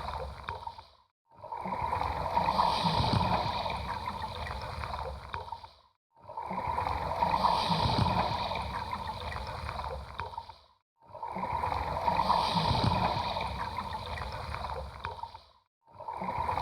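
Ocean waves washing in: each stretch of surf swells and dies away over about five seconds, then breaks off into a sudden brief silence before the same surf starts again, three full times.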